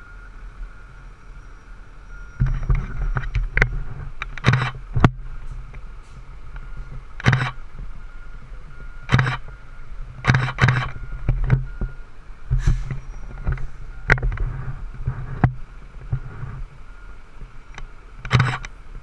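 A large vehicle's engine running close by with a low rumble, broken by irregular short loud bursts of noise every second or two. A faint reversing alarm beeps in the background.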